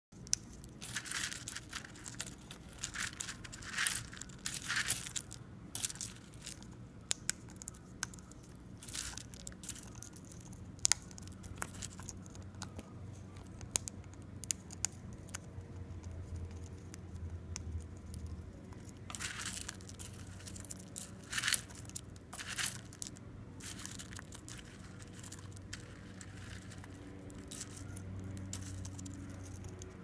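African grey parrot eating from a metal bowl of seed and pellet mix: irregular crunches, cracks and sharp clicks as its beak picks through and bites the food, coming in clusters with short pauses between.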